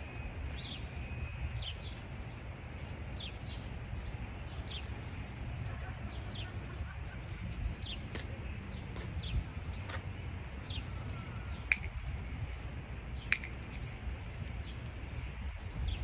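Small birds chirping, many short calls repeating throughout over a steady low rumble, with two sharp clicks about a second and a half apart a little after the middle.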